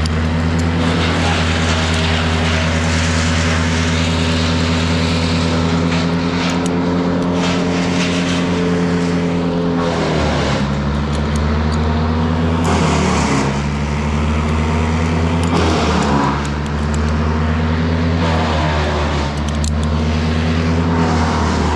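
Large engine running steadily, its pitch dipping and recovering under load several times in the second half, with crackling and knocks over it.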